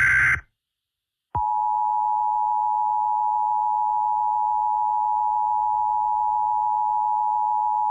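Emergency Alert System tones: the last burst of the screechy digital header ends under half a second in. After about a second of silence, the steady two-tone EAS attention signal starts and holds unbroken.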